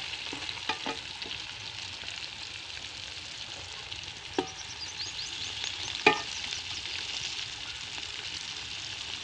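Bitter gourds (karela) sizzling as they fry in hot ghee in an aluminium karahi, being browned so they lose their bitterness. A steady crackling hiss runs throughout, with a few sharp clicks of a metal spatula against the pan as they are turned.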